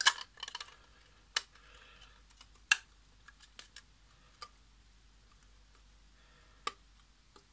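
Sharp, separate clicks and taps of small plastic and circuit-board parts being handled and fitted together while a Wi-Fi smart plug is reassembled. There are about five clear clicks spread out, the loudest a little over a third of the way in, with faint small ticks between them.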